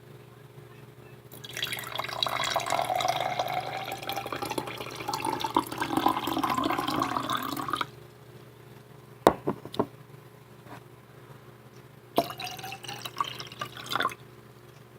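Water being poured from one glass into another, with a pitch that rises as the glass fills. Then come a few sharp clicks of glass on glass, and a second, shorter pour near the end.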